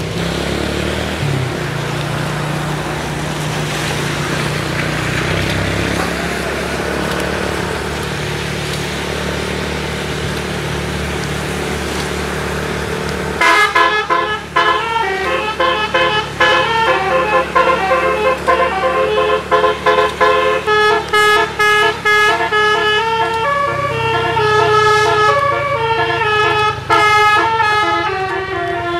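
A bus engine runs steadily. About 13 seconds in, the bus's roof-mounted multi-trumpet telolet horn starts playing a fast tune, short notes stepping up and down in quick succession, and keeps playing to the end.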